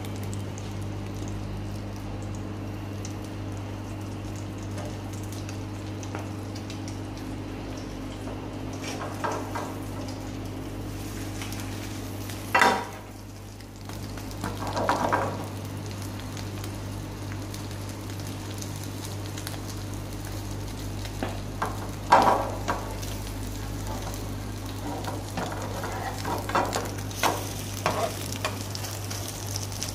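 Battered chicken breast sizzling as it pan-fries in oil in a non-stick frying pan, over a steady low hum. A spatula scrapes and knocks against the pan a few times, the sharpest knock about halfway through and a cluster of them near the end, as the piece is pressed and turned.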